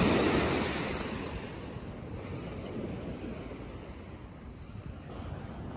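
Small waves breaking and washing up a sandy shore, with wind buffeting the microphone. The rush is loudest about a second in, then eases to a steadier, quieter wash.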